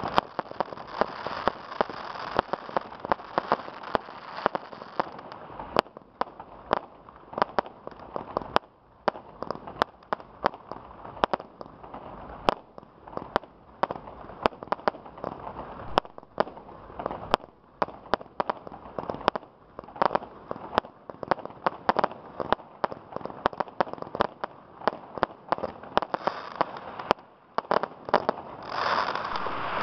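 Aerial fireworks firing in a rapid, irregular string of bangs and pops as shots launch and burst. Dense crackling of the stars comes at the start and builds again near the end.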